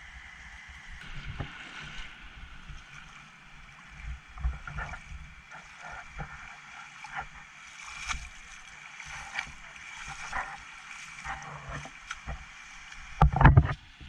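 Feet splashing and sloshing through shallow seawater over rocks in irregular bursts, with a loud close thump about thirteen seconds in.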